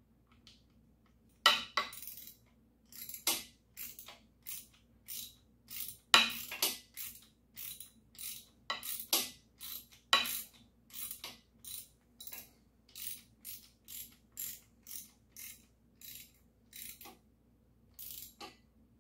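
Hand ratchet clicking in short, evenly spaced strokes, about two a second, as the connecting-rod nuts are snugged down on a small-block Chevy, with a few louder metal knocks in the first half.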